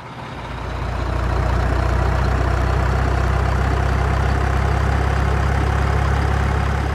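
Truck engine idling steadily, fading in over about the first second.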